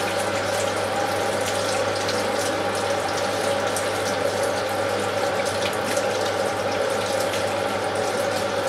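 Kitchen hot-water tap left running into the sink until the water runs hot: a steady rush of water with a constant tone in it.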